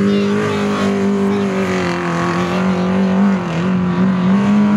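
Autocross car's engine running hard at high revs, a steady pitched note that sags a little in the middle and climbs again near the end as the driver eases off and comes back on the throttle.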